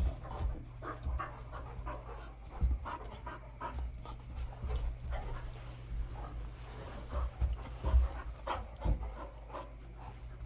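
Dogs panting hard during play, with short irregular scuffling noises and a few dull thumps.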